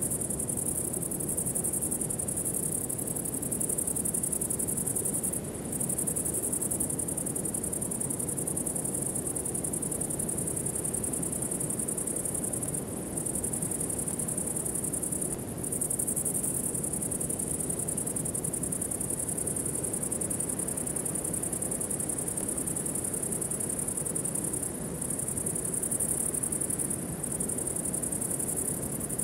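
Steady high-pitched insect chorus that breaks off for a moment several times, over a low, even background rumble.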